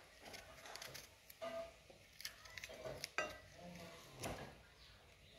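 A kitchen knife cutting the core out of a green bell pepper over a ceramic plate: faint, scattered clicks and taps of the blade and pepper against the plate.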